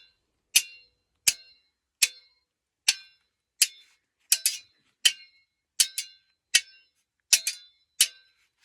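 Two metal swords struck together again and again, about one hit every 0.7 seconds, each a sharp clink with a short bright metallic ring. A few of the hits come as quick double clinks. The blades are being tried out for sword foley.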